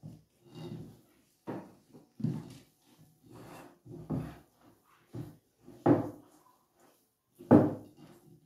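Hands kneading a crumbly flour dough in a glass bowl, giving irregular dull thumps and knocks about once a second. Two louder knocks come near the end.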